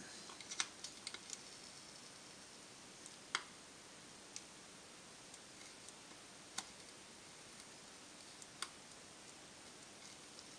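Faint, irregularly spaced small clicks and ticks over a steady low hiss, from a soldering iron tip pressing into and melting the plastic casing of a cordless drill battery pack.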